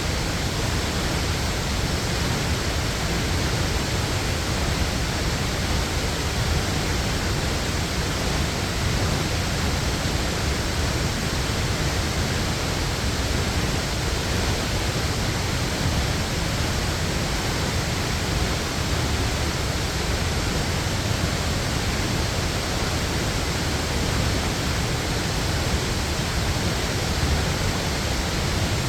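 Waterfall: falling water rushing in one steady, unbroken wash of sound.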